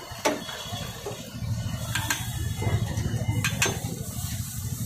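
Steel ladle stirring dosa batter and clinking against a steel pot, a few sharp clinks, over a steady low rumble that sets in about a second in.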